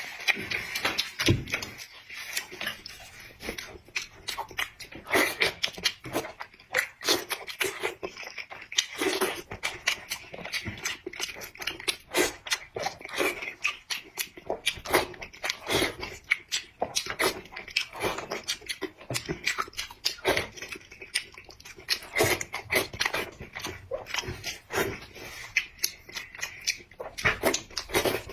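Close-miked eating sounds: a person chewing and biting food, with a dense, irregular run of wet smacks and crunches.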